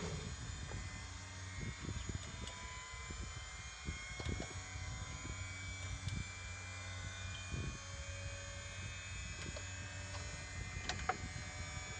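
Steady electrical hum in an AS350 B2 helicopter cockpit during pre-start, with faint whines rising slowly in pitch and scattered clicks as console switches and buttons are pressed, the sharpest click near the end.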